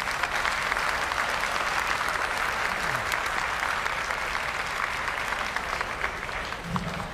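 Audience applauding steadily, many hands clapping at once without a break.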